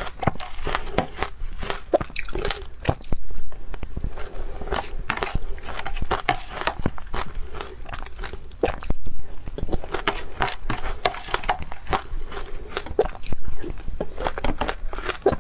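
Close-miked crunching and chewing of shaved ice coated in matcha powder, with dense sharp crackles throughout and a few louder crunchy bites.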